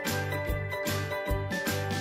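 Background music with a steady beat: a low thump about every 0.8 s under a bright, chiming melody.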